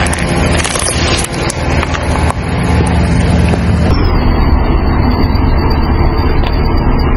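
Car engine running with the tyre rolling slowly on asphalt, picked up close to the wheel as a steady low hum. The sound changes abruptly about four seconds in, becoming a more even rumble.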